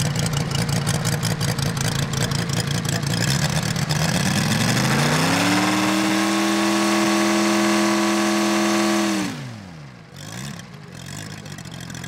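Engine and propeller of a large-scale radio-controlled Hawker Sea Fury model: idling roughly, then revved up smoothly about four seconds in to a steady high note, held for about four seconds, then throttled back quickly to idle with one brief blip.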